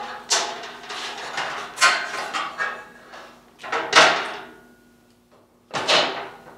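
Bauer portable bandsaw being set down onto a welded steel angle-iron and rebar stand: a run of clunks and scrapes as the saw is handled and seated, the loudest about four seconds in and one more near the end.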